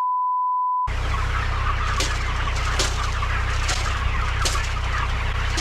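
A censor bleep, a single steady tone about a second long, at the start; then a flock of chickens clucking and calling over a steady low hum.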